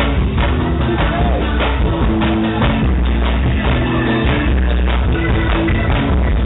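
Loud live band music over a stage sound system: a steady drum beat with bass and percussion.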